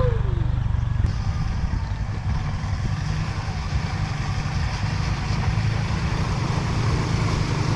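Motorcycle engine running steadily while riding along a trail, a low rumble with a wash of noise over it.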